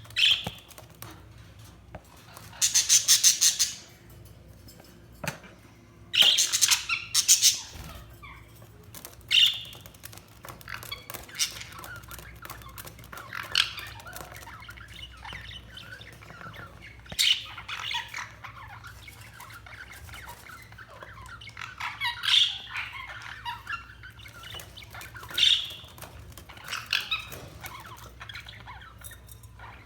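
Budgerigars chirping and squawking: loud bursts of rapid chatter every few seconds over softer, scattered chirps.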